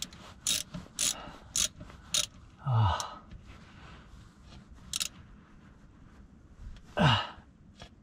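Ratchet wrench clicking in short, sharp strokes as the rear differential's fill plug is tightened: several clicks about half a second apart in the first two seconds and one more about five seconds in. Two low grunts of effort come about three seconds in and near the end.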